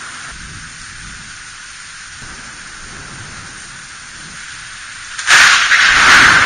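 Steady hiss of rain, then about five seconds in a sudden, loud crack of thunder that goes on rumbling.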